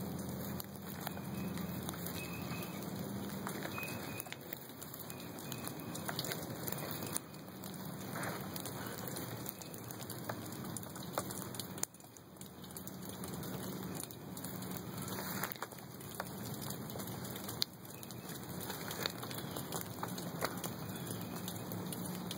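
Steady outdoor background hiss with a low hum, broken by a few scattered small crackles and ticks.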